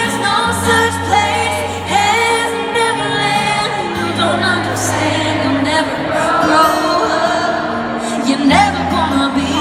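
Country-pop song: a woman singing over band accompaniment with held bass notes.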